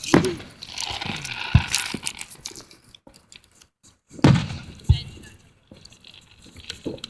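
Fireworks bursting overhead: several deep booms, the loudest near the start and about four seconds in, with crackling between them.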